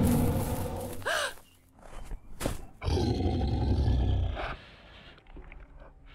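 Two loud, deep monster roars for a snarling wolf-like beast: the first is already going at the start and tails off after about a second, and the second runs from about three seconds in for about a second and a half.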